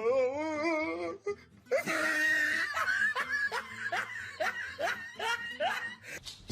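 A person laughing: a wavering drawn-out vocal sound at the start, then a run of short repeated laughing bursts, about two to three a second.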